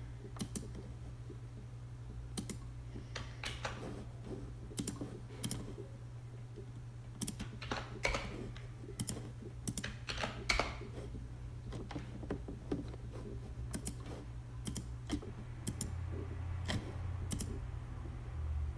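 Computer keyboard keys and mouse clicks, tapped at irregular intervals over a steady low hum.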